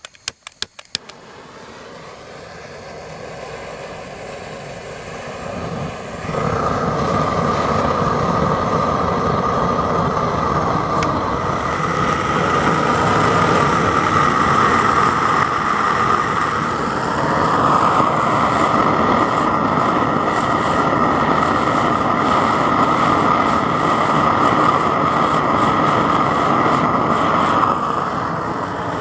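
Propane gas forge burner: a quick run of sharp clicks, then a rushing hiss that builds over several seconds, steps up suddenly about six seconds in and runs on loud and steady with a strong tone in it.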